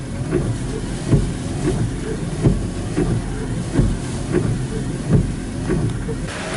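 Typhoon wind buffeting the microphone: a heavy low rumble with repeated gusting swells. About six seconds in it changes abruptly to a steady hiss of rain.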